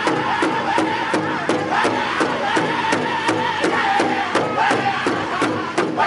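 Powwow drum group singing in high-pitched unison while beating a large shared hide drum with sticks in a steady rhythm of about three strokes a second.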